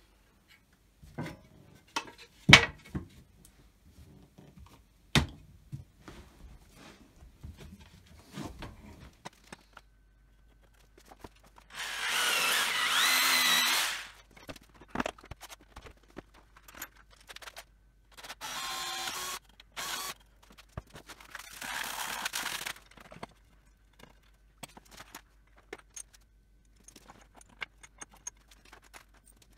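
Wooden battens knocked and handled, then a corded power jigsaw cutting a softwood batten in short runs: one about two seconds long, then a few shorter bursts.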